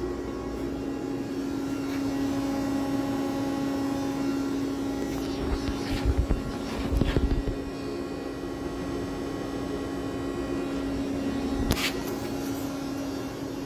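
Toolmex TUR630/MN-78 CNC lathe running with a steady electric hum on one constant pitch. A few low thumps come about halfway through, and a single sharp clunk near the end.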